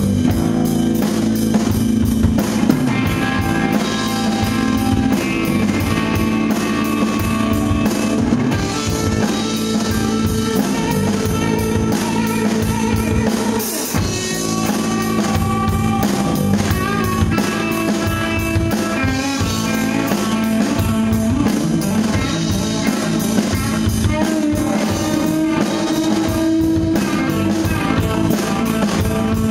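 Live rock band playing: distorted electric guitars, bass guitar and a drum kit keeping a steady beat.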